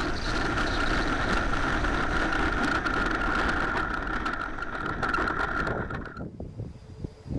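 Two Jetfan 120 ducted fans of a large radio-controlled Boeing 727 model running with a steady high whine over a rushing hiss, stopping sharply about six seconds in.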